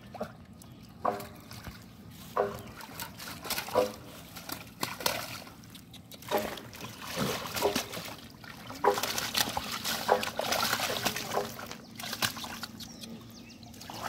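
Hands splashing and sloshing in shallow muddy water as a large fish is grabbed and struggles. The splashes come in irregular bursts and are busiest and loudest a little past the middle.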